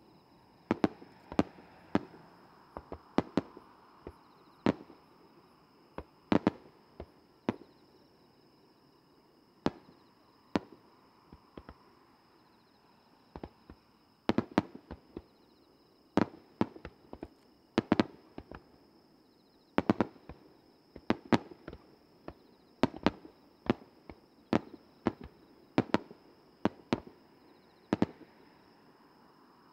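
Firework shells bursting in the sky: dozens of sharp bangs in irregular volleys, sometimes several in a second, with short pauses between groups.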